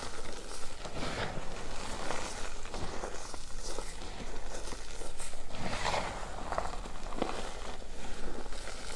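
Hands scooping, squeezing and crushing a bed of powdery reformed gym chalk (magnesium carbonate): irregular soft crunches and rustles as clumps break up and powder spills between the fingers, busiest a little past the middle.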